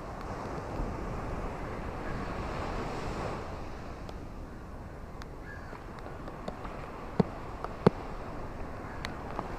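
Ocean waves washing on a shore: a swell of surf in the first few seconds that then eases off. A scatter of sharp little ticks runs through it, with two louder snaps late on.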